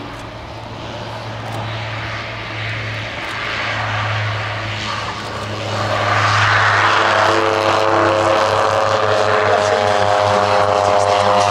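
North American OV-10B Bronco twin-turboprop aircraft landing: a steady propeller drone that grows louder as it comes in and touches down, swelling about six seconds in into a stronger, multi-toned engine and propeller noise as it rolls past close by on the runway.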